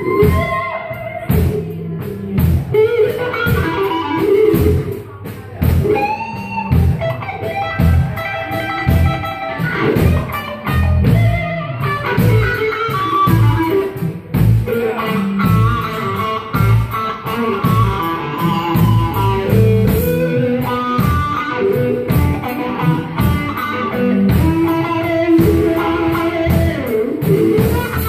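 Live blues band playing an instrumental passage: an electric guitar leads with bending notes over a full drum kit.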